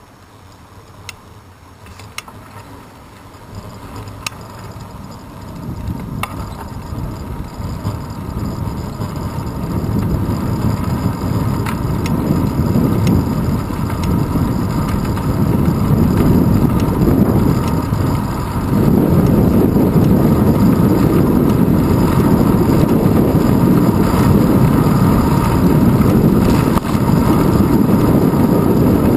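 Wind buffeting the microphone of a handlebar-mounted GoPro Hero 2 on a moving road bicycle, a rumbling rush that grows from faint to loud over about ten seconds and then holds steady. A few light ticks sound in the first few seconds.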